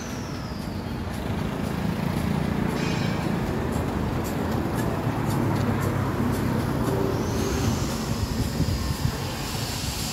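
Road traffic on a town street, with a vehicle engine running steadily close by, its low drone strongest early on and easing later. Two faint high falling whistles, near the start and about seven seconds in.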